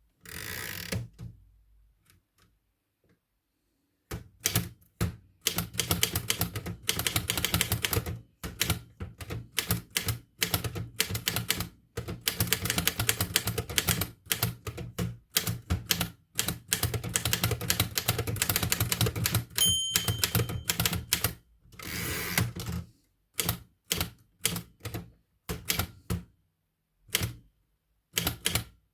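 1941 Erika Model M portable typewriter typing, its type bars striking a new platen in quick runs with short pauses. A single short ring, the margin bell, comes about two-thirds of the way through.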